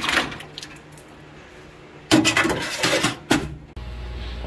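Metal engine parts clinking and clattering as they go into an ultrasonic cleaner's steel tank, with a sharp clatter at the start and a louder run of clattering about two seconds in. A steady low hum takes over near the end.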